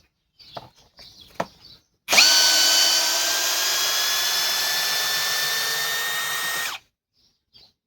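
Cordless hammer drill motor running flat out under load in low gear for about four and a half seconds, a steady high whine creeping slightly up in pitch, then cutting off abruptly. A few faint handling clicks come before it starts.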